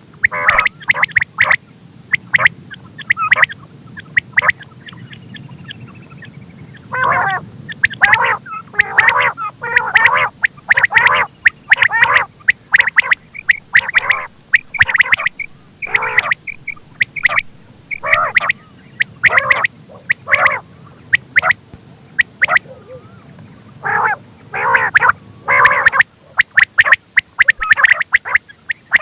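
Quail calling over and over in quick groups of short, sharp notes, with two brief lulls. It is a recorded call of the kind played to lure quail when hunting.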